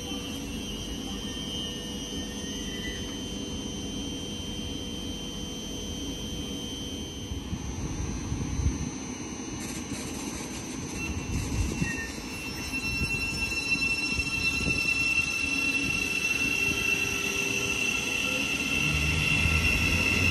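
Thameslink Class 700 electric multiple unit moving along the platform: a steady high electric whine over wheel-on-rail rumble. It grows louder in the last few seconds as a deeper hum joins.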